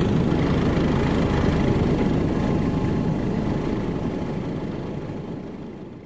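Steady drone of a light aircraft's engine, which fades out over the last couple of seconds.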